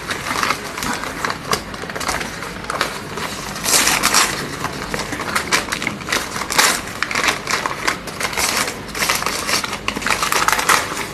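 Courier mailer packaging being torn open and crumpled by hand: a continuous run of irregular tearing and crinkling rustles.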